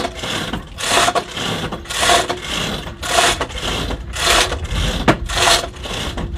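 Hand-hauled chain pulley tackle rattling and rasping as its chain is pulled through the block under heavy load, in repeated strokes about once a second.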